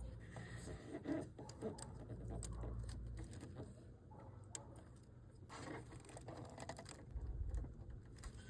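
Faint scattered clicks and small handling noises as a new headlight bulb is pushed and fitted onto the pins of its holder, over a low steady hum.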